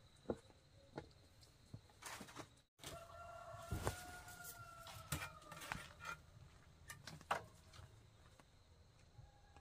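A rooster crows once, a long held call beginning about three seconds in that falls slightly at the end, among scattered light knocks and steps.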